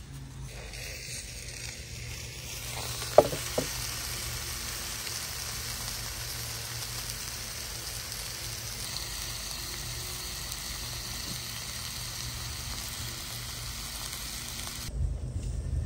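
Seasoned fish fillets sizzling in a cast iron skillet over an open wood fire, a steady frying hiss. Two sharp knocks come about three seconds in, and a low rumble starts near the end.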